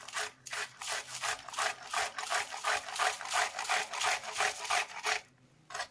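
Peeled cucumber being grated by hand on a flat metal grater with punched teeth: quick, even rasping strokes, about four a second, which stop about five seconds in, with a couple more just before the end.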